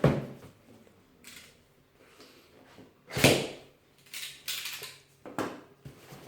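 Cardboard subscription box being opened by hand: a few sharp knocks and short scrapes of cardboard, the loudest about three seconds in.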